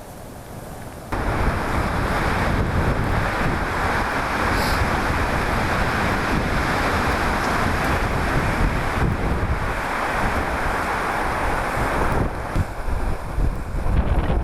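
Wind buffeting the microphone: a loud rushing rumble that starts abruptly about a second in and turns gusty near the end.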